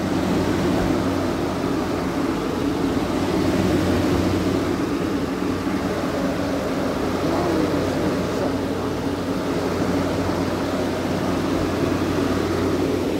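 Outdoor air-conditioning condensing unit running: the GE condenser fan motor moving air over the steady hum of the compressor.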